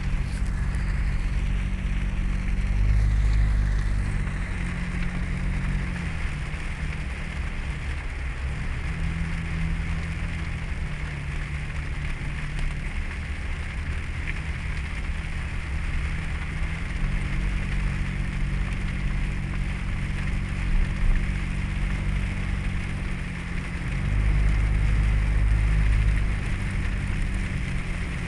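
Vehicle engine running at low speed, its note stepping up and down and swelling twice, over a steady hiss of tyres pushing through standing floodwater on the road.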